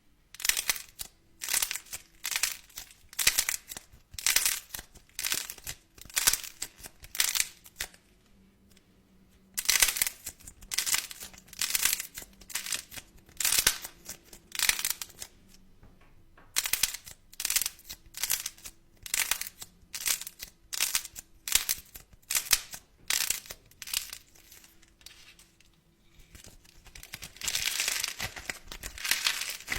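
Crinkly material being squeezed and crumpled by hand in quick repeated crackles, about two a second, pausing twice and ending in a longer continuous crinkle.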